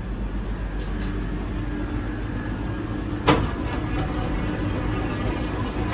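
Steady low hum and rumble inside a Vande Bharat Express electric train coach, with one sharp click about three seconds in.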